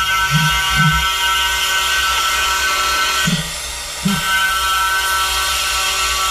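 A CNC milling spindle whines at a steady high pitch while cutting carbon fiber. The whine drops out for under a second about three seconds in. A few short low swoops are heard as the machine moves.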